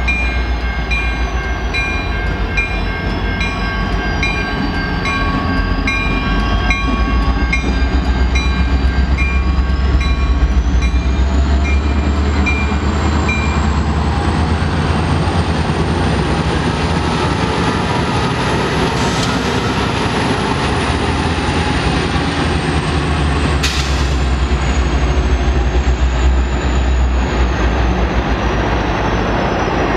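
CN diesel freight locomotives rumbling past at close range, hauling a string of empty tank cars. A level-crossing bell rings steadily, about two strokes a second, and stops about halfway through.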